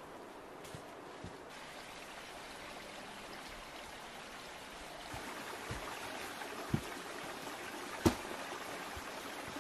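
Small bush stream trickling and running steadily, a little louder from about five seconds in, with two sharp knocks near the end.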